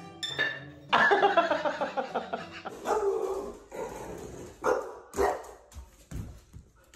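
A dog barking and yipping in a run of pitched calls, followed by a couple of sharp thumps.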